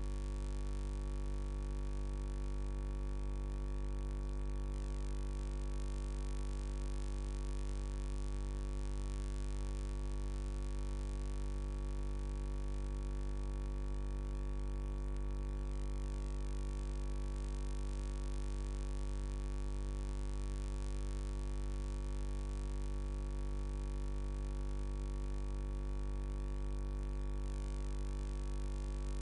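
Steady electrical mains hum with a buzz of many even overtones, unchanging throughout.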